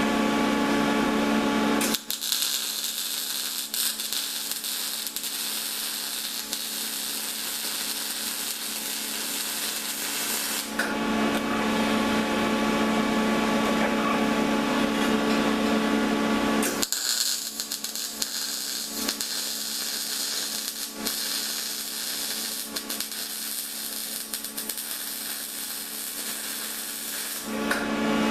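MIG welder arc crackling steadily in two long runs of about nine and ten seconds, each laying a weld bead. Between and around the runs there is a steady low electrical hum.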